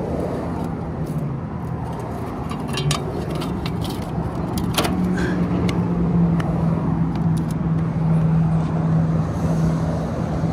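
1963 Chevrolet C10's 235 straight-six idling steadily, with a few short clicks as a tail-light lens is pressed back into its housing.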